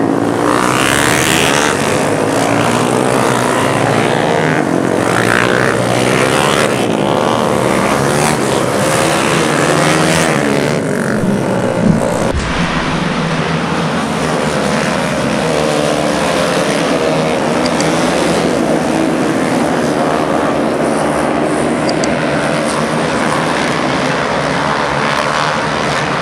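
A pack of racing motorcycles' engines revving and passing, many engine pitches rising and falling over one another. A brief sharp knock about halfway through.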